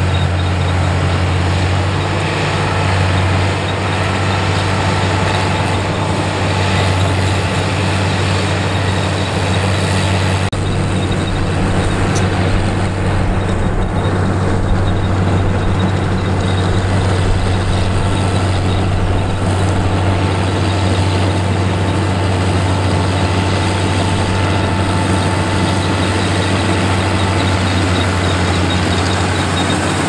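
Claas Crop Tiger 40 combine harvester running, a loud steady heavy engine drone with the dense rattle and whirr of its working machinery over it.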